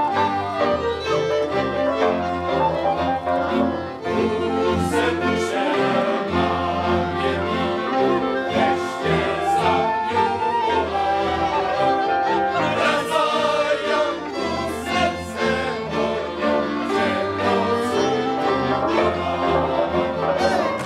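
Wallachian folk music: a fiddle-led string band playing a tune, with voices singing along.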